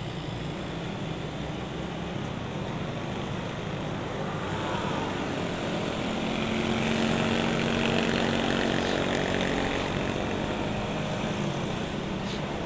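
Motorcycle engine running as the bike rides through traffic, with wind rush on the mounted camera's microphone. About four seconds in the engine note rises and grows louder, peaking a few seconds later as the bike speeds up, then eases slightly.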